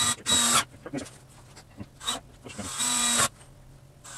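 Cordless drill driving screws into a wooden frame: the motor whines with the screw grinding into the wood in two short runs, one at the start and a longer one nearly three seconds in, with a few small clicks between.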